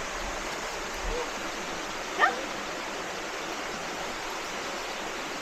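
Steady rush of a waterfall, with a single short dog bark about two seconds in.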